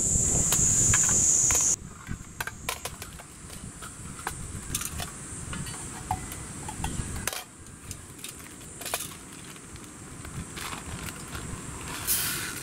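A loud, steady high-pitched buzzing drone of cicadas that cuts off suddenly about two seconds in, then light clicks and knocks of an aluminium mess tin and its lid being handled, with a brief plastic rustle near the end.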